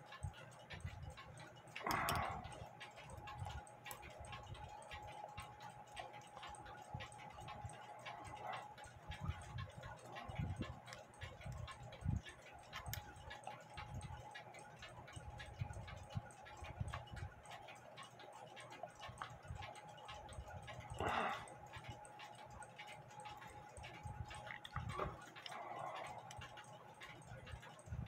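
Faint, steady ticking of a clock, with a few louder small clicks and rustles from pliers working on the brass plates of a clock movement.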